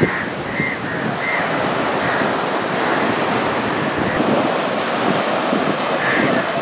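Sea surf breaking and washing up the beach in a steady rush, with wind blowing across the microphone.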